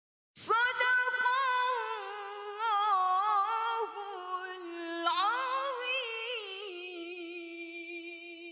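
A teenage girl's voice in melodic Qur'an recitation (tilawah), singing one long melismatic phrase on a single breath with rapid, trembling ornaments. It starts about half a second in, swells upward again about five seconds in, then settles into a steadier held note.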